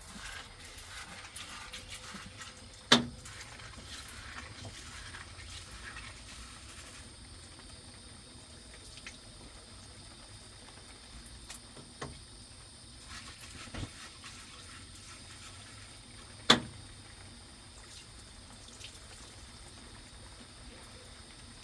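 Water splashing or pouring for several seconds, then a quieter background, with two sharp knocks, one about three seconds in and one about sixteen seconds in.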